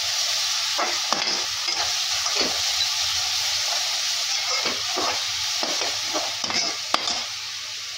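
Onion and garlic paste sizzling in hot oil in a metal kadhai while a perforated steel spatula stirs and scrapes it in irregular strokes, with a sharp clink of the spatula about seven seconds in.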